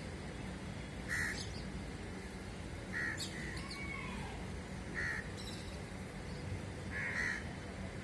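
Crows cawing: four short calls about two seconds apart, over steady low background noise.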